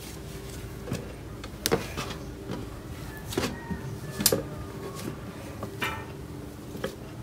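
Cloud slime being pressed and squished by hand: scattered crisp crackles and pops, about six of them, over a steady faint hum.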